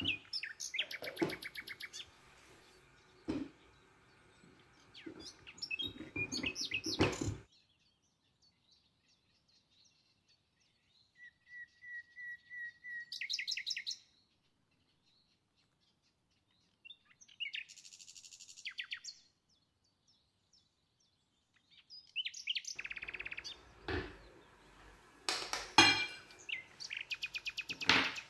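A songbird singing in separate bursts of rapid trills and repeated chirps, with gaps of near silence between them; the fullest, loudest stretch of song comes near the end.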